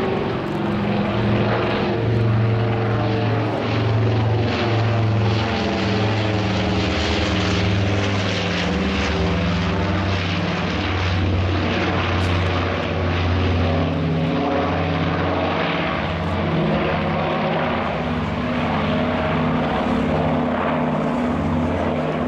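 Nord Noratlas's two Bristol Hercules radial engines and propellers running steadily as the aircraft flies past overhead, a loud continuous sound whose pitch wavers slightly as the two engines beat against each other.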